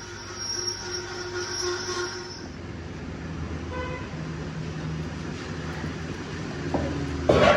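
A motor vehicle engine running with a steady low hum, with a short horn toot just before it starts; insects chirring in pulses at first, and a loud noisy burst of sound near the end.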